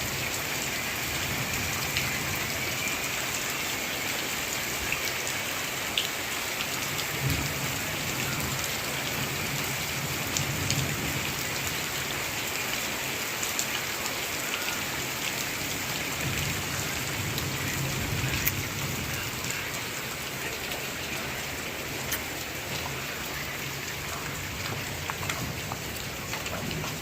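Heavy tropical downpour: a steady hiss of rain with scattered sharp ticks of drops striking hard surfaces.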